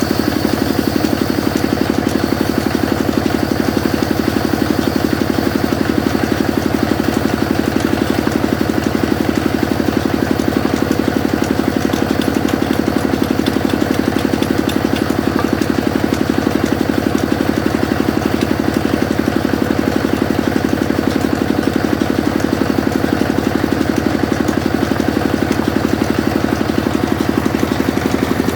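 Sawmill machine running steadily, with an even, rapid engine-like pulse.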